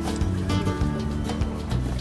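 Instrumental background music, a run of held notes.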